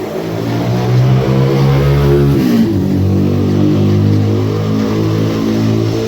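Hyundai Tiburon GT's engine accelerating with its pitch rising, then dropping sharply about two and a half seconds in as the automatic transmission shifts up, before pulling again. The shift is where the owner hears an unwanted noise.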